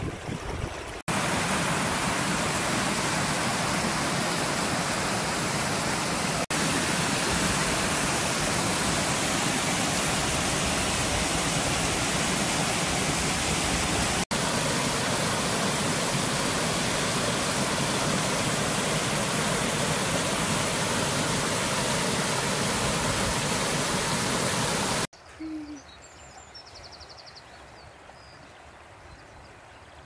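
Water rushing and splashing down stepped rock ledges of a small waterfall on a stream: a loud, steady roar of water. About 25 seconds in it cuts off abruptly, leaving a much quieter background with a few faint chirps.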